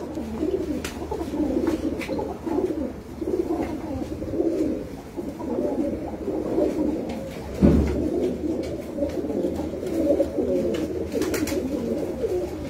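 Domestic pigeons cooing continuously, several calls overlapping. A single thump about two-thirds of the way through.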